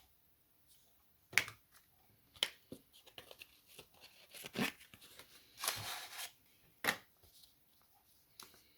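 Cardboard packaging and paper inserts being handled: scattered sharp taps and clicks, with a longer papery rustle a little past halfway.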